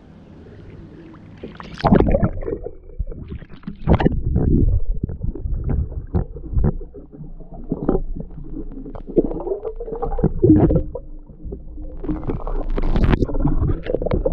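Water sloshing and splashing around a speargun-mounted action camera as it goes under the river surface and back up, with muffled underwater gurgling in irregular bursts after a quiet first two seconds.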